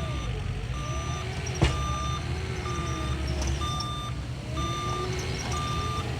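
Skid steer's reversing alarm beeping steadily at one pitch over the running engine, whose pitch rises and falls. A single sharp knock about one and a half seconds in.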